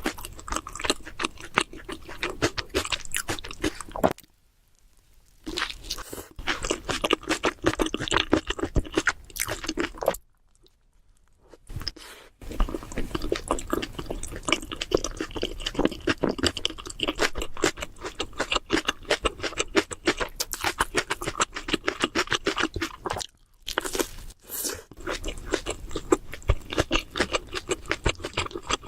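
Close-miked chewing of a Subway sandwich: repeated wet, crunchy bites and mastication in dense runs, with a few short pauses between mouthfuls.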